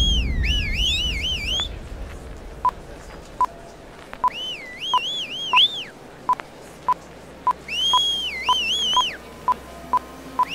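Sound-effect beeps that start a couple of seconds in and come faster and faster, under repeated high, warbling, whistle-like chirp phrases that swoop up and down. A low hum comes in about halfway through.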